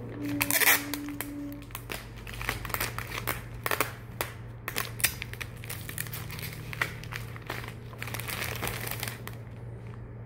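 Bouquet wrapping material crinkling and rustling in irregular bursts as it is folded and handled around the flowers, over a steady low hum.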